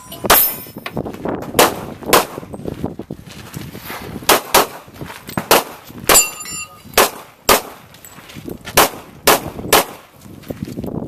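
A competitor's gunshots during a multigun stage, about a dozen sharp cracks, mostly fired in quick pairs about half a second apart with short pauses between strings. About six seconds in, a shot is followed by a brief metallic ring like a struck steel target.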